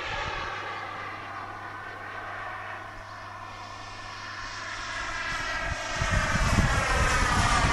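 Small gas-turbine engine of an RC F-16 model jet in flight, a steady hiss-and-whine from the sky. It fades a little in the first half, then grows much louder over the last couple of seconds as the jet comes closer.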